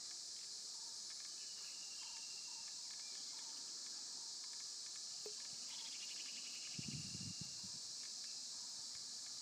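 Faint, steady drone of insects outdoors with a few small scattered bird chirps. A short cluster of soft thumps and rustling from a body shifting on the mat comes about seven seconds in.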